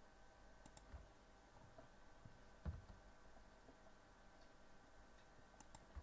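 Near silence with faint computer mouse clicks, a quick pair about a second in and another pair near the end, and one soft low thump near the middle.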